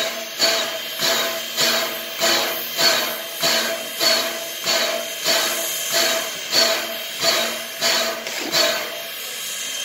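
Canadian National 89, a 1910 2-6-0 steam locomotive, standing and giving a steady ringing metallic beat, about three beats every two seconds, which stops about nine seconds in.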